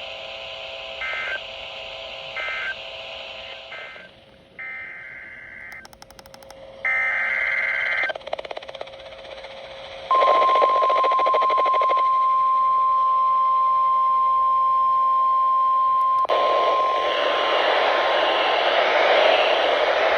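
Emergency Alert System signalling on a NOAA Weather Radio broadcast: three short screeching data bursts about a second apart, then two longer screeching data bursts, then a steady single-pitch 1050 Hz warning alarm tone for about six seconds. Loud radio static follows the tone.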